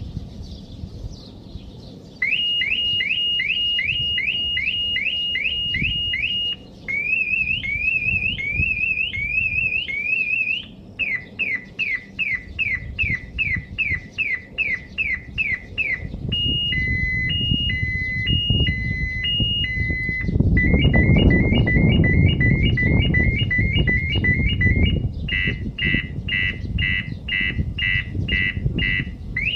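Car security alarm siren of a Maruti Suzuki Fronx cycling through its tones: rapid rising chirps, a warble, falling sweeps, a two-tone high-low, fast yelps, then pulsed beeps. It starts about two seconds in, and a low rumbling noise runs under it through the middle stretch.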